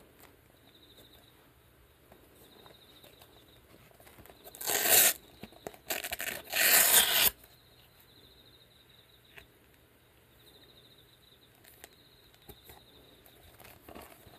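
New Velcro hook-and-loop fastener ripping apart as a Dexter slide sole is peeled off the shoe bottom, the grip tight. There is a short rip about four and a half seconds in, then a longer one from about six to seven seconds.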